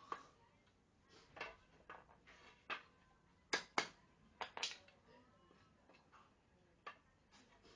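Scattered light knocks and clicks of small objects being handled, with two pairs of sharper taps a little past the middle.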